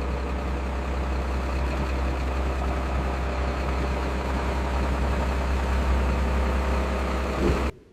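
Road roller's diesel engine running steadily with a deep, even hum, cutting off abruptly near the end.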